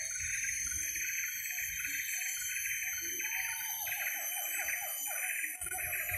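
Siamang calling from a distance: a series of repeated hoots that break into a quick run of rising notes partway through, over a steady high buzzing chorus.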